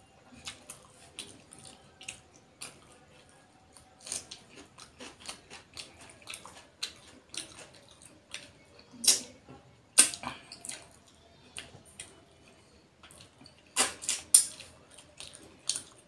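Wet mouth smacks and chewing of someone eating rohu fish curry and rice by hand, with soft squelches of fingers in the curried rice. Irregular sharp smacks throughout, a few louder ones a little after the middle and again about two seconds before the end.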